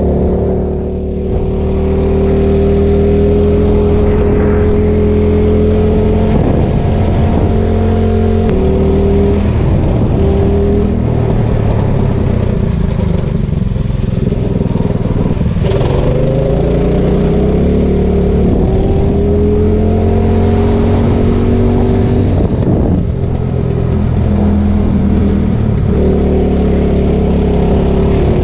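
Vehicle engine running under way, its pitch climbing as it accelerates and stepping down at gear changes, with a marked rising pull after a dip about 16 seconds in.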